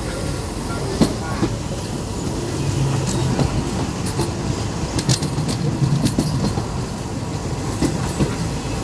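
Passenger train running along the track, heard at an open carriage window: a steady low rumble from the wheels and running gear, with sharp clacks scattered through it as the wheels pass over rail joints.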